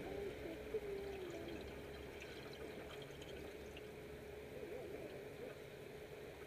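Water gurgling and trickling, over a faint steady hum, with one brief knock shortly after the start.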